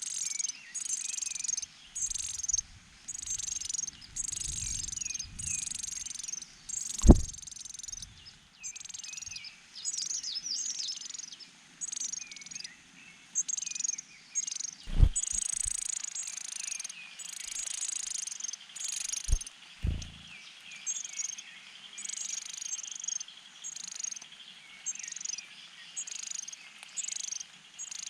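Leaf warbler nestlings chirping: high, gliding calls repeated more than once a second. A few dull low thumps break in, the loudest about a quarter and halfway through.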